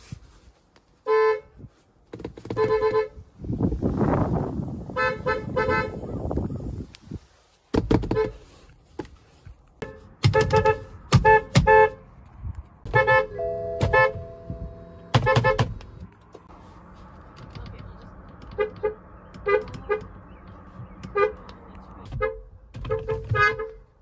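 BMW car horns sounded from the driver's seat of several different BMWs, mostly quick short toots in clusters with a few longer blasts held for about a second. A loud rushing noise fills a few seconds between honks about four seconds in.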